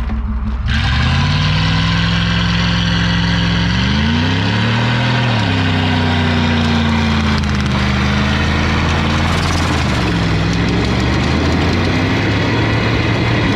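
Truck engine revved up and held at high revs during a burnout, its pitch climbing about a second in and wavering up and down a couple of times, with a steady rushing noise over it from the spinning tyres.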